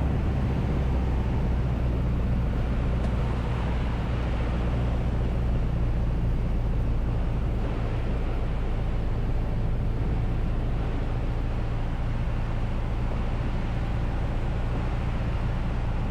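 Piper PA28-181 Archer's four-cylinder Lycoming engine and propeller running with a steady drone on final approach, deep low tones held at an even level.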